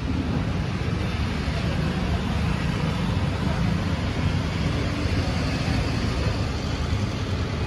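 Steady road traffic noise, an even rumble of passing vehicles with no single event standing out.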